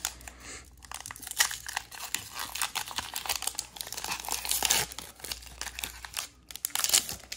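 Foil wrapper of a Pokémon TCG Crimson Invasion booster pack being worked and torn open by hand: irregular crinkling and crackling of the foil, with many short sharp crackles.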